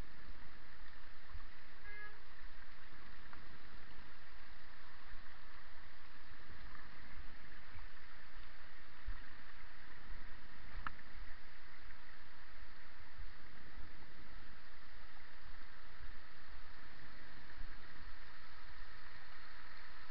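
Mountain stream rushing, a steady hiss, with irregular low bumps and rumble as the bicycle and camera jolt over the rocky stream bed.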